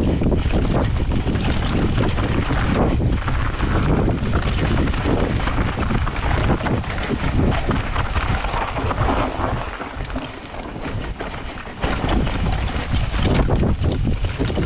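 Wind rushing over the microphone of a camera mounted on a mountain bike riding a forest dirt trail, with the tyres running on dirt and the bike rattling over the rough ground in quick knocks. It eases for a couple of seconds about ten seconds in, then picks up again.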